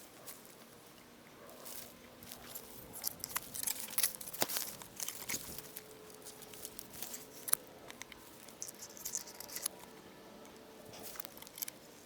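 Rustling and crunching of footsteps and gear moving, with scattered sharp clicks; the busiest stretch is from about two to eight seconds in.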